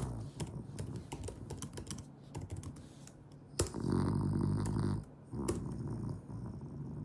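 French bulldog snoring in its sleep: one loud, low snore about four seconds in, then a softer snoring breath, with a run of small clicks over the first few seconds.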